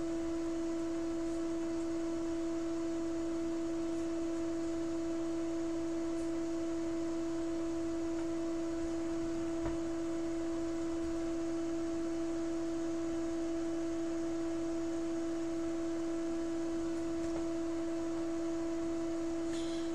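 A steady, unchanging electronic tone, pure like a sine wave, with a fainter overtone above it, holding at one pitch and level throughout; a faint click about ten seconds in.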